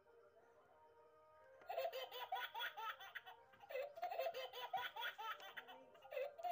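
High-pitched giggling laughter, starting about two seconds in and running on in fast runs of short 'ha' notes, with music underneath.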